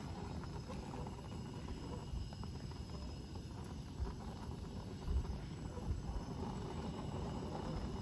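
Dyna-Glo gas grill running after ignition with a steady hiss, the strange hissing sound it makes when lit. A few soft bumps come about halfway through.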